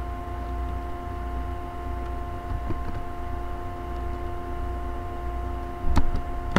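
Steady electrical hum with a low rumble under it, broken by a few faint computer-keyboard taps and one sharper click about six seconds in.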